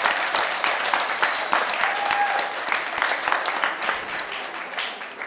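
Audience applauding, a dense clapping that thins out and fades near the end.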